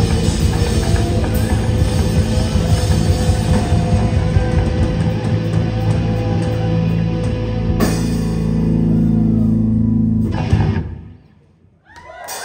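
Instrumental math-rock trio playing live: electric bass, electric guitar and drum kit. From about five seconds in the band holds long sustained notes, then stops short and leaves a brief near-silent gap, and the music comes back just before the end.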